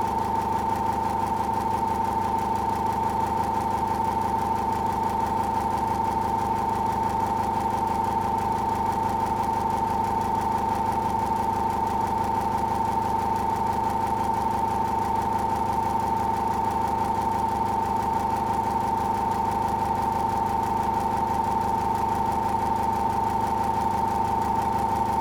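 Electric fan running steadily, with a strong, even whine over a lower hum.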